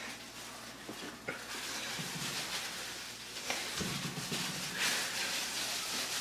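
Quiet rustling of plastic food-prep gloves as raw ground meat is rolled into balls between the palms, with a few soft clicks.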